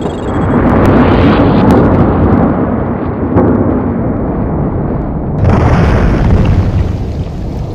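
Explosion sound effect: a long, loud blast that swells and slowly dies away, with a second surge of the blast about five and a half seconds in.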